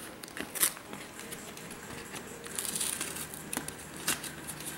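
A folding knife slits the edge of a cardboard Priority Mail envelope, then the stiff cardboard rustles as it is pulled open. Scattered clicks and a short scraping stretch run through it.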